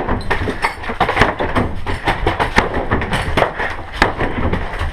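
An irregular run of sharp clicks and knocks, several a second, over a low rumble.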